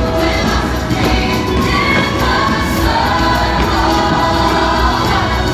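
Fireworks-show soundtrack: music with a choir singing.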